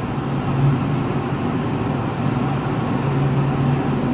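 Steady background din with a low hum that fades in and out.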